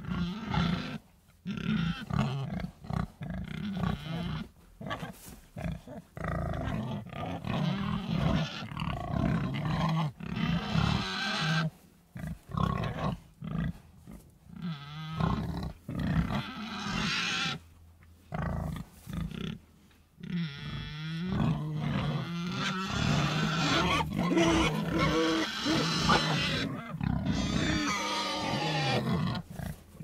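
Pigs grunting in runs broken by short pauses, with higher-pitched squealing cries mixed in during the second half.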